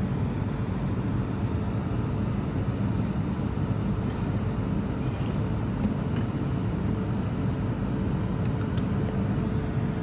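Steady low background rumble with a faint steady hum, and a few faint ticks about halfway through and near the end.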